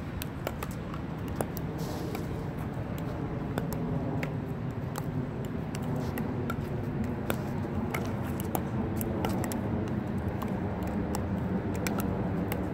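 Pickleball paddles hitting a plastic ball in a slow dink rally, with the ball bouncing on the asphalt court: sharp pocks and ticks at an irregular pace, some louder than others, over a steady low rumble.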